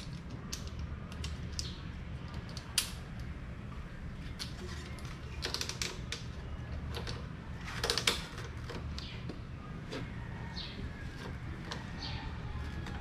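Scattered metallic clicks and clinks of hand tools and exhaust fittings as a slip-on motorcycle exhaust is being fitted, with a sharp click about three seconds in and a short rattling flurry about eight seconds in.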